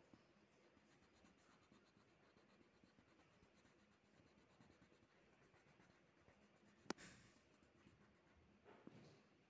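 Faint, steady scratching of a yellow pen colouring in a drawing on paper. A single sharp click comes about seven seconds in, and a brief rustle comes near the end.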